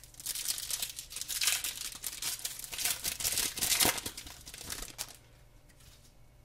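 Foil hockey card pack being torn open and crinkled by hand, a dense crackling rustle that stops about five seconds in.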